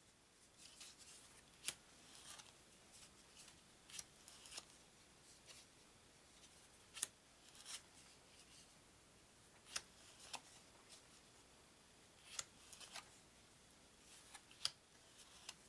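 Stiff card-stock game cards being handled one at a time off a stack on a wooden table: faint crisp snaps, roughly in pairs every two to three seconds.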